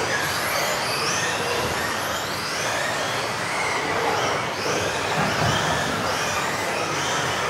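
Several electric RC offroad buggies racing together, their motors whining and the pitch rising and falling over and over as they accelerate and brake, over a steady hiss of tyres and drivetrains.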